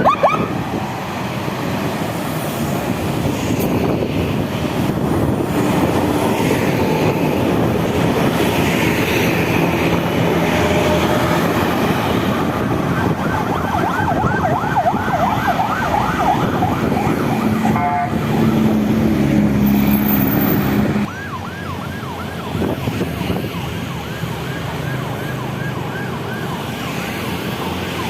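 Escort vehicles' sirens yelping in quick repeated sweeps over the heavy engine and tyre noise of a passing bus convoy.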